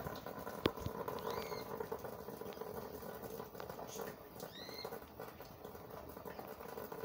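Light rain pattering steadily on garden foliage, with a sharp click under a second in and two short high chirps, a faint one about a second and a half in and a clearer one about four and a half seconds in.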